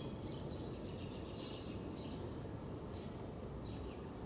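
Small birds giving short, high chirps, scattered through and busier about a second or two in, over a steady low background rumble.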